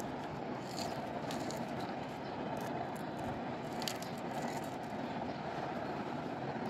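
Dried red chillies crumbled by hand over a steel plate, giving a few faint crackles, over a steady low rumbling background noise.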